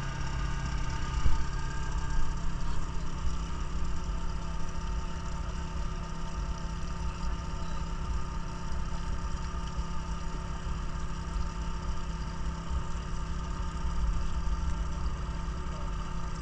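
Engine-driven dive (hookah) air compressor running steadily at a constant speed, feeding air to a diver under water.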